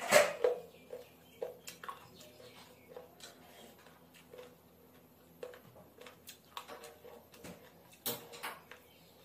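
Eating sounds of rice and curry being eaten with the fingers: scattered short, quiet chewing smacks and clicks, with one louder mouth sound right at the start.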